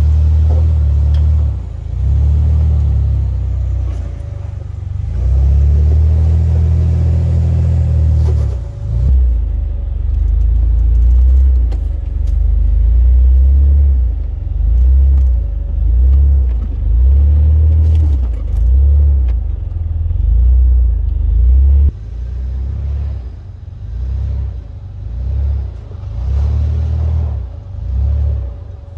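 Off-road 4x4 trucks' engines running at low speed as they crawl over rock. The low rumble rises and falls in loudness throughout.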